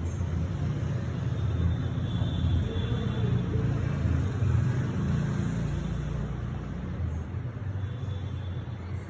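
Steady low rumbling background noise with no clear single event.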